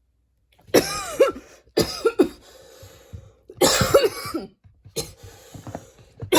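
A young woman coughing hard, a series of four or five harsh coughing bouts about a second apart, starting just under a second in.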